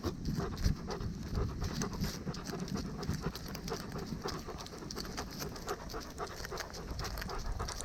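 A dog panting steadily close to the microphone, with many short ticks and rustles mixed in.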